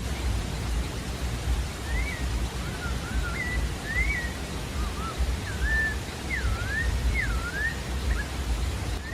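Pale-breasted thrush (sabiá-da-várzea) singing: a series of short, varied whistled phrases that rise and fall, starting about two seconds in, over a steady low rumbling noise.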